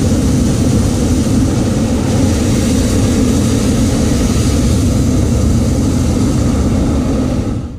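Hot-air balloon's propane burner firing in one long, steady blast that cuts off near the end.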